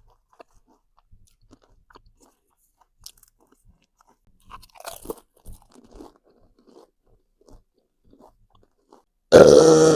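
Close-up chewing and crunching of food, with soft scattered crunches. Near the end comes one loud, drawn-out burp lasting over a second.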